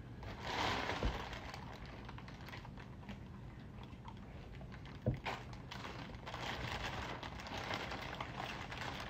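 Clear plastic bag rustling and crinkling as it is handled, with a couple of light knocks, the sharper one about five seconds in.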